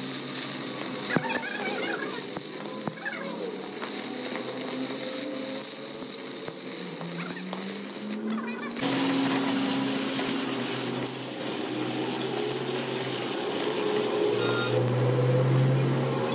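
Stick (arc) welding on a truck's steel rear axle housing: the electrode arc crackles and hisses steadily, with sharp spatter pops. The sound changes abruptly about nine seconds in.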